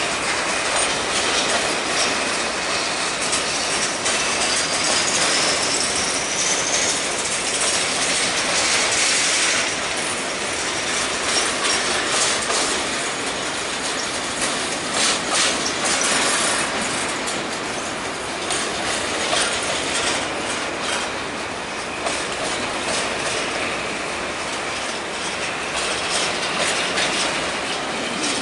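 Empty covered hopper grain cars of a freight train rolling past: a steady rumble and clatter of steel wheels over the rail joints. A faint, rising wheel squeal comes about five seconds in, and there are sharper clanks around the middle.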